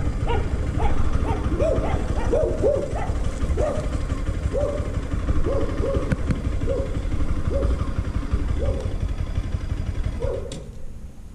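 A dog barking repeatedly, about once a second, over the low rumble of a moving motorcycle's engine and wind. The rumble drops away near the end.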